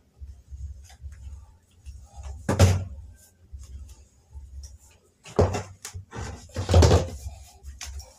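A wooden door knocking and a round plastic stool being carried in and set down on a hard floor: three loud thunks, about two and a half, five and a half and seven seconds in, with smaller knocks between, over a low steady hum.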